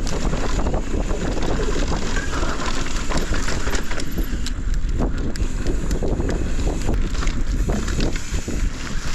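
Yeti SB165 mountain bike descending a loose, dry dirt trail: steady wind rush on the microphone over tyres crunching through the dirt, with frequent clicks and knocks as the bike rattles over rocks.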